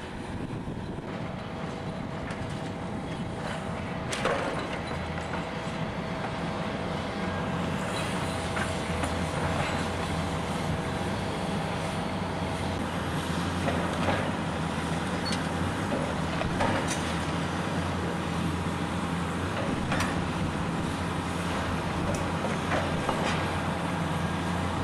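Diesel engines of heavy demolition excavators, a Liebherr 944 C high-reach machine among them, running steadily; the low drone grows stronger about five seconds in. Scattered sharp knocks of debris are heard through it.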